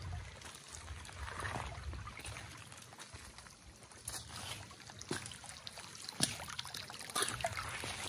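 Shallow creek trickling over stones, with wind buffeting the microphone as a low rumble, and a few sharp clicks scattered through.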